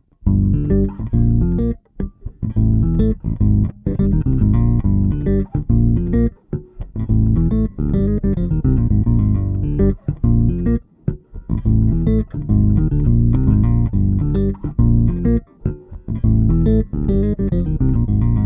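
Electric bass playing a busy riff of short plucked notes through an MXR M280 Vintage Bass Octave pedal, ending on a held note.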